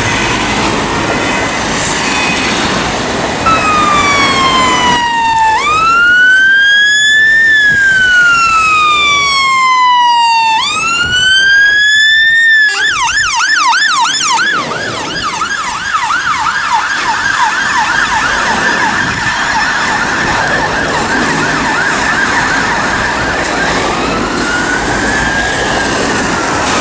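Scania P280 fire engine's electronic siren passing close by. First a slow wail that rises and falls twice, then it switches to a fast yelp of about three sweeps a second, over road traffic noise. Near the end the yelp stops and there is one short rise and fall.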